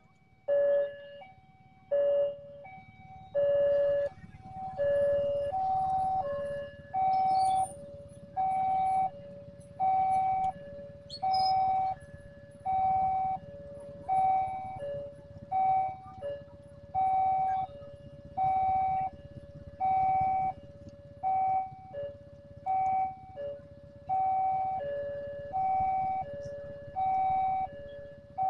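Railway level-crossing warning alarm sounding a steady two-note electronic chime, a higher and a lower tone alternating over and over, signalling that a train is coming and the barriers are down.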